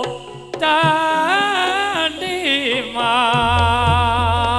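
Traditional folk performance music: a solo singer sings long, ornamented phrases with a wavering pitch over instrumental accompaniment, after a brief pause at the start. A deep, steady low tone comes in about three and a half seconds in.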